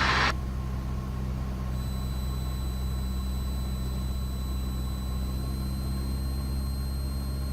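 Cessna 172's piston engine and propeller droning steadily in the cabin. Faint steady high-pitched tones join the drone about two seconds in.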